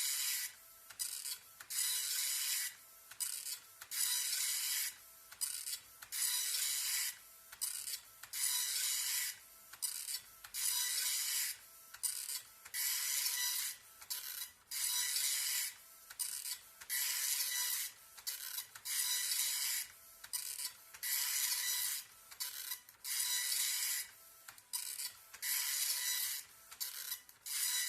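Epson LX-300 nine-pin dot-matrix printer printing: a high, rasping buzz as the print head sweeps across each line. It comes in passes of about half a second to a second, with short gaps between them, repeating steadily.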